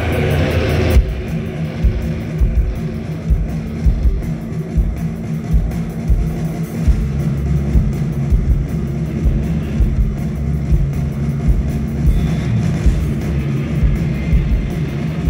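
Live rock band playing loud with electric guitar, heavy in the bass. The full, dense sound drops away about a second in, leaving low sustained notes and thudding low hits, and higher guitar sound comes back in around twelve seconds.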